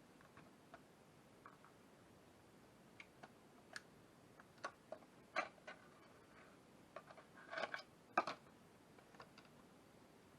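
Faint scattered clicks and taps of clear plastic packaging being handled as a boxed model locomotive is unpacked, growing busier with a few sharper clicks in the second half.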